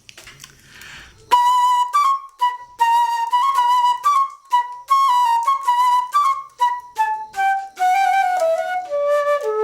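Recycled flute made from a water pipe, coins and scraps of cutlery and padlocks, played solo. After about a second of quiet it plays a quick string of short, clipped notes around one pitch, then a phrase that steps downward near the end.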